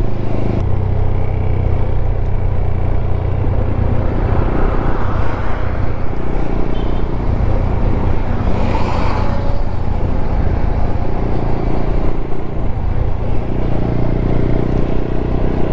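TVS Apache RTR 200 motorcycle's single-cylinder engine running steadily under way, with wind rushing over the microphone.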